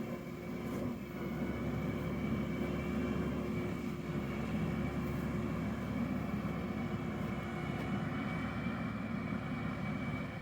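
Tractor engine running steadily, getting louder about a second in.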